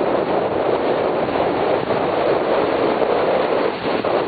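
Wind on the microphone over water rushing along the hulls of a trimaran under sail: a steady rushing noise.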